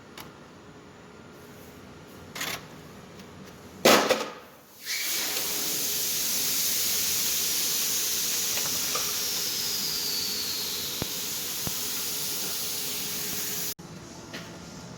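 A loud knock about four seconds in, then a loud, steady, high hiss that runs for about nine seconds and cuts off suddenly.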